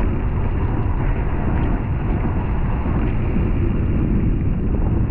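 Steady rushing wind and road noise on the microphone of a bicycle being ridden on a wet road.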